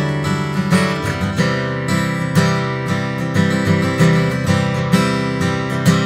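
Gibson Doves in Flight, a square-shouldered dreadnought acoustic guitar, strummed in a rhythmic chord pattern, with sharp strums every half second to a second and the chords ringing between them.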